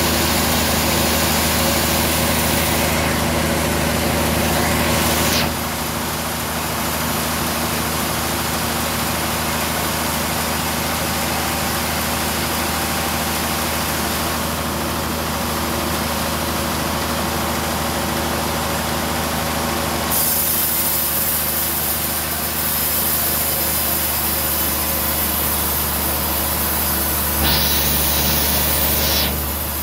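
Band sawmill running and its blade cutting through a trembesi (rain tree) log: a steady machine drone under the hiss of the cut, changing in tone a few times.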